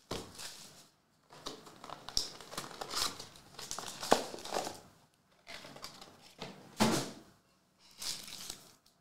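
A 2023 WWE Donruss Elite trading-card box and pack being opened by hand: the wrapper crinkles and tears in irregular bursts, with a couple of sharp snaps.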